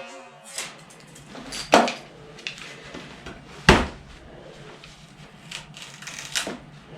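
Victorinox Hunter XS pocketknife being handled in a destruction test: a handful of separate sharp knocks and clicks of hard objects, the loudest a little past halfway, as the blade is worked toward a bend.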